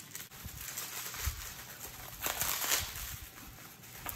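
Plastic bubble wrap rustling and crinkling in irregular bursts as it is pulled and torn off a small package, loudest about two seconds in.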